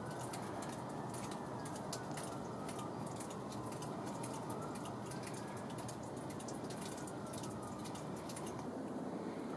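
Water dripping in a rocky mine entrance: many small irregular ticks over a steady rushing background, with a faint whistle slowly rising and falling now and then.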